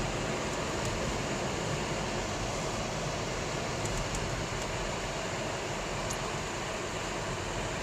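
Steady rushing noise of a vehicle driving, with a few faint ticks.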